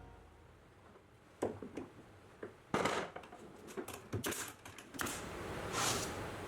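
A series of irregular light clicks and knocks, then a brief swish near the end: small workpieces being handled and set down on a workbench.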